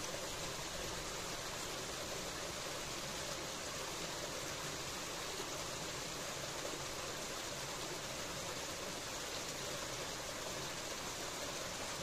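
Small stream running over stones and a little cascade: a steady, even rush of water.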